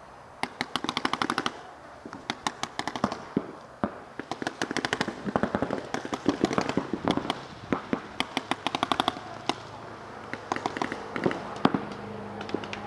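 Paintball markers firing in rapid strings of sharp pops, burst after burst with short pauses between.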